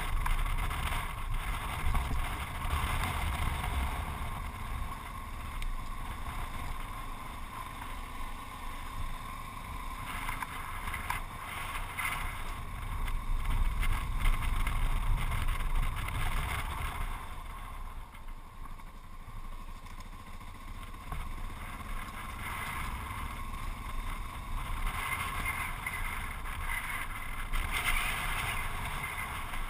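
Yamaha XT660Z Ténéré's single-cylinder engine running as the motorcycle rides along a gravel road, mixed with wind buffeting the microphone. It goes quieter for a few seconds a little past the middle, then picks up again.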